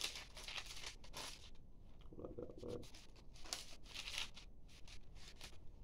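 Thin Bible pages being leafed through by hand: a run of quick, papery rustles and flicks as the pages are turned one after another.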